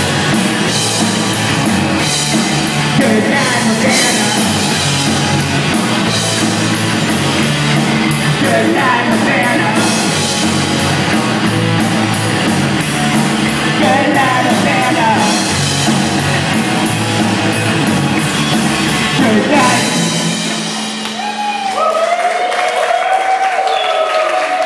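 Punk rock band playing live, with distorted electric guitar, drum kit and a sung vocal. The song ends about 20 seconds in on a held chord that fades, and is followed by audience applause and whoops.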